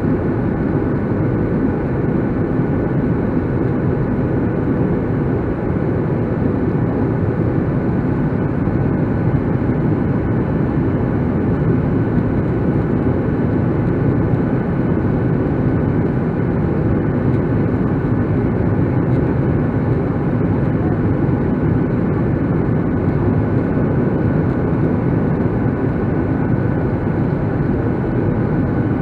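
Steady cabin noise of a jet airliner in flight, heard at a window seat over the wing: an even drone of engines and rushing air, with a few faint steady tones on top, unchanging throughout.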